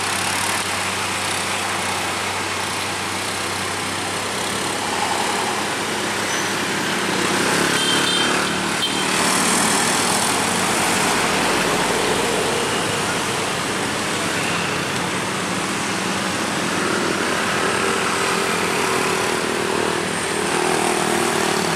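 Road traffic on a steep climb: a UD Quester heavy truck's diesel engine pulling a load of concrete railway sleepers uphill in a steady drone, with motorcycles and another truck passing close by. It is a little louder from about eight to thirteen seconds in.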